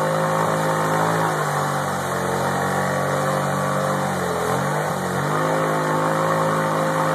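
2012 Kawasaki 750 ATV's V-twin engine held at high revs as its wheels spin in deep mud, the pitch dipping briefly about four and a half seconds in, then climbing back. The quad is stuck and not moving forward.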